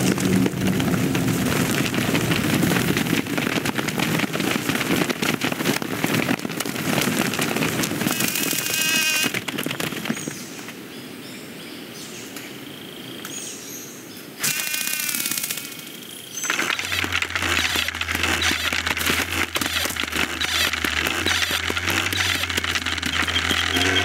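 Animated-film sound effects: a dense crackling patter of many ants scurrying through a tunnel, then a quieter spell broken by two short warbling high-pitched sounds. About two-thirds through, a steady low droning buzz with a rattle sets in: the approaching grasshopper swarm's wings.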